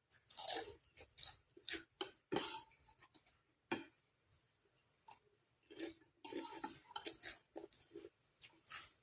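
Eating bakso close to the microphone: a string of short, irregular clicks and taps from a spoon on the bowl and from chewing.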